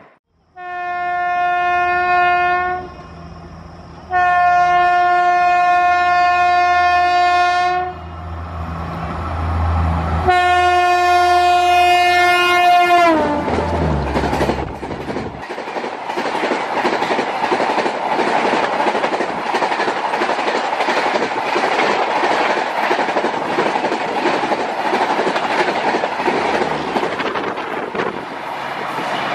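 Hazrat Nizamuddin–KSR Bengaluru Rajdhani Express passing at speed: its locomotive horn gives three long blasts over a low rumble, the last one dropping in pitch as the locomotive goes by. Then the steady rush and wheel clatter of the coaches running past.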